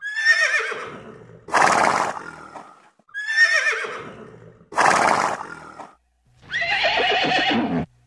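Horses neighing: a wavering whinny falling in pitch, then a harsher, noisier neigh, the same pair heard twice over. A third, different neigh follows and cuts off suddenly near the end.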